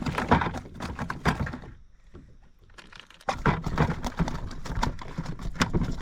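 Rapid, irregular clicking and knocking that stops for about a second and a half near the middle, then starts again abruptly.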